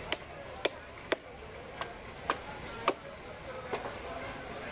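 Seven sharp wooden knocks, roughly one every half second to second, from a wooden stick striking a piece of big ayer catfish down onto an upright fixed cutting blade (boti) to chop through the bone; the knocks stop about three-quarters of the way through.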